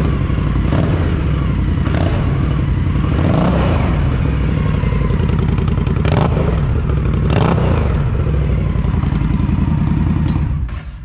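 A 2020 Indian Scout's V-twin, fitted with a Vance and Hines exhaust, idles with several quick throttle blips, the revs rising and falling. The engine is shut off just before the end and the sound dies away.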